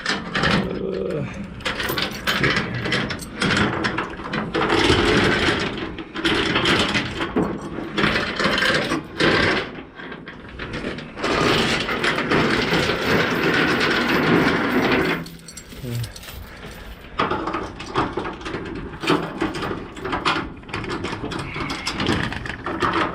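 Steel load-securement chain and a snap (lever) binder being handled and tightened on a flatbed trailer: repeated metal clanking, rattling and clicking, with longer spells of chain scraping and rattling.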